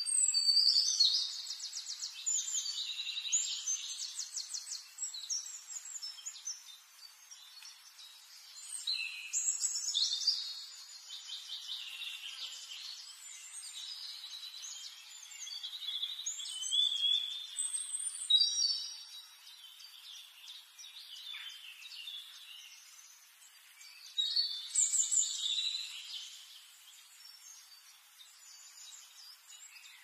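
Small finches singing high, rapid trills in four bouts of a few seconds each, with fainter chirps between.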